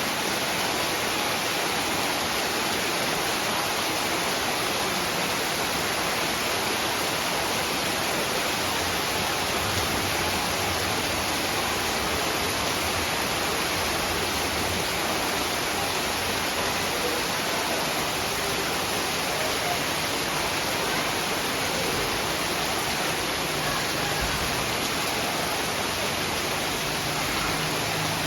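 Heavy rain falling steadily: a dense, even hiss with no separate drops standing out.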